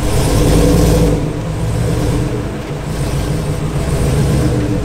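Lifted Chevrolet Silverado 2500HD pickup's engine running as the truck pulls forward slowly, a little louder in the first second, then settling.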